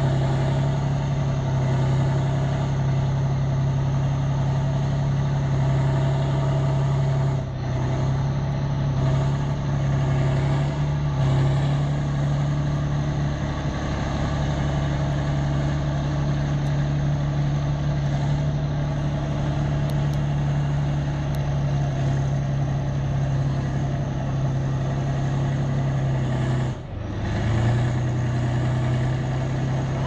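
Heavy diesel engine of a tracked vehicle running steadily at low revs, a constant low drone that dips briefly about seven seconds in and again near the end.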